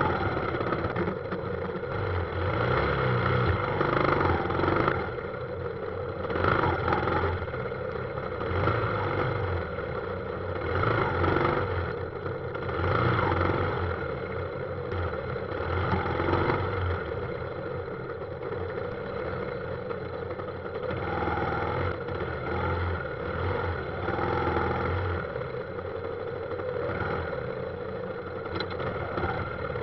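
Motorbike traffic in a slow jam, heard from a moving motorcycle: the small engines of scooters and motorcycles close by, running and pulling away, mixed with car engines. The noise swells and eases every couple of seconds.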